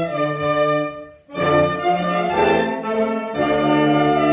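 Saxophone ensemble playing held chords in harmony. The sound dies away to a short break just after a second in, then the full ensemble comes back in.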